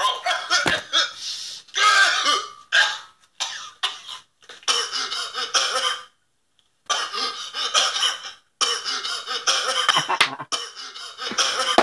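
A man's exaggerated choking and coughing noises in quick bursts, made to sound like a beat. They stop briefly about six seconds in, then go on.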